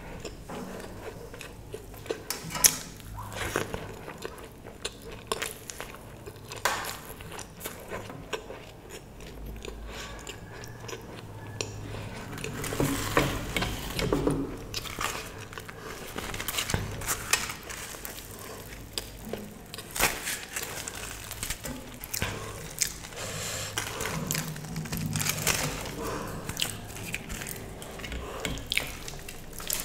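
Close-up eating sounds: chewing and crunching with many small clicks, mouth sounds and the clink of a plate, louder for a few seconds about halfway through and again near the end.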